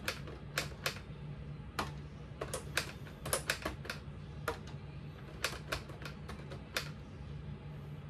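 Keys of a built Lego Ideas typewriter being pressed: irregular sharp plastic clicks, some single and some in quick runs of several a second, over a faint steady low hum.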